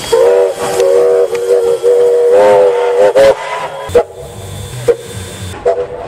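Steam locomotive whistle sounded in a rapid string of short toots, the pitch bending at the start of each, then a few brief single toots, over the loud hiss of escaping steam.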